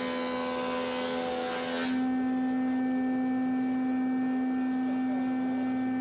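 Electric thickness planer running with a steady hum while planing a reclaimed barn board. A rushing cutting noise sits over the hum for about the first two seconds, then stops, and the machine runs on with only its steady hum.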